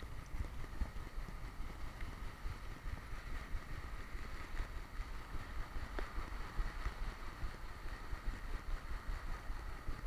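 Quick, uneven thumps and jostling of an action camera strapped to a running boxer dog's back, shaken with each stride, with a light wind noise on the microphone and a single sharp click about six seconds in.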